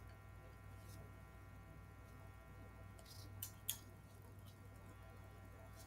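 Near silence: room tone with a steady low electrical hum, and a few faint clicks between about three and four seconds in.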